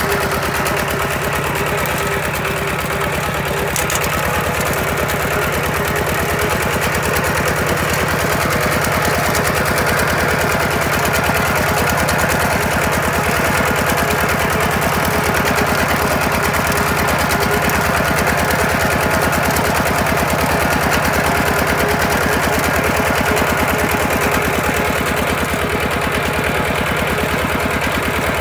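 Single-cylinder diesel engine of a Kubota two-wheel walking tractor running steadily as the tractor drives along, with a fast, even chugging beat.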